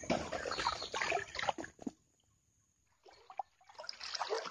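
Shallow swamp water splashing and sloshing as hands and legs work in it, in two spells with a quiet gap of about a second in between.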